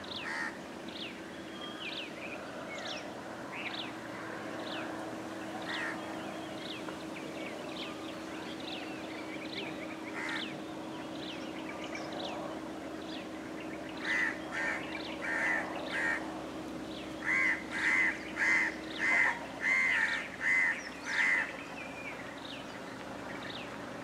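Birds calling in the trees: small birds chirp throughout. Past the middle comes a loud series of about a dozen repeated calls in two runs, about two a second, which end a little before the close.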